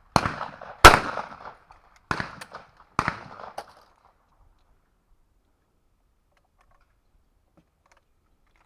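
Shotgun reports in clay target shooting: a sharp shot just after the start, a louder one under a second later, then two weaker reports about two and three seconds in.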